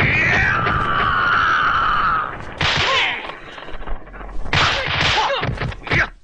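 A man's long, high battle cry that glides down and then holds for about two seconds. It is followed by kung fu fight sound effects: two sharp whooshing swipes, then a quick run of slapping punch and block impacts near the end.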